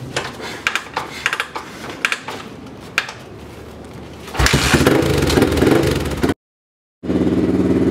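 Single-cylinder Honda 600 cc four-stroke dirt bike engine, built up to about 625 cc with an oversized piston, valves and a special cam, being kick-started: a few clicks and clanks from the kickstarter and bike, then the engine catches about four seconds in and runs loudly. The sound drops out briefly near the end, then the engine is heard running steadily.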